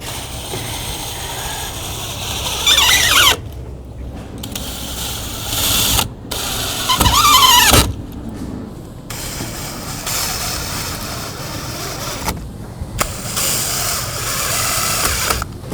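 Power drill driving screws into a wooden crate in several runs with short pauses between them. Twice the motor's whine slides down in pitch as a screw bites and loads it.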